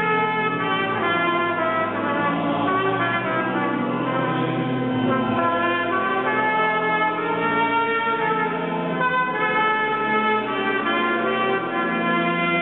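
Trumpet playing a melody in long held notes, accompanied by an organ holding low sustained chords.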